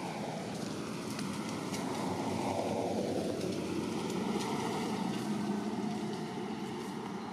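A motor vehicle passing: steady engine and road noise that swells through the middle and eases off near the end.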